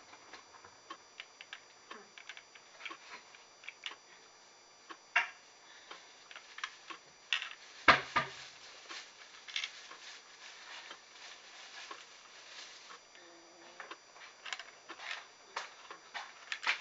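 Small plastic toy snowmobile being handled, with irregular light clicks and taps of plastic and one louder knock about eight seconds in.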